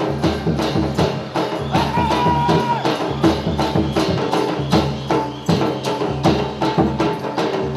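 Gujarati folk dance music: a fast, steady percussion beat of about four strokes a second with a melody of held notes over it.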